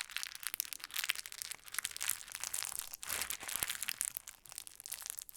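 Plastic bag being handled and moved, crinkling and rustling in irregular surges with dense little crackles.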